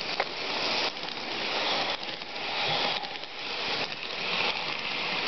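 HO scale model train cars rolling past close by: a steady rushing rattle of metal wheels on the track, with a few faint clicks.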